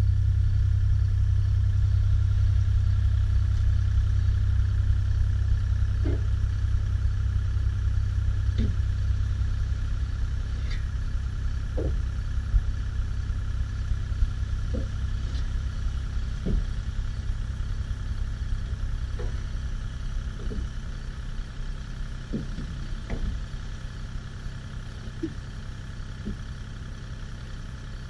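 Kubota KX040-4 mini excavator's diesel engine running steadily as the machine lowers a plastic septic tank into its hole, gradually getting quieter, with a dozen or so short knocks scattered through it.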